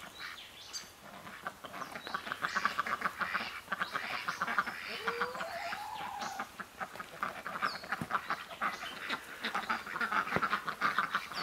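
A group of ducks quacking in quick, repeated runs of short calls.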